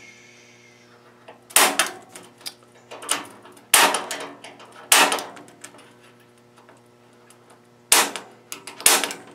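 Center punch struck on 14 gauge sheet metal to mark hole locations: several sharp metallic strikes, some in quick pairs, with pauses between.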